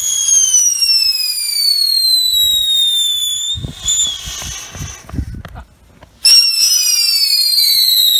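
Piccolo Pete whistling fireworks: a loud, shrill whistle that slides slowly down in pitch for about three and a half seconds, then sputters and breaks off. A second Piccolo Pete starts about six seconds in with another falling whistle.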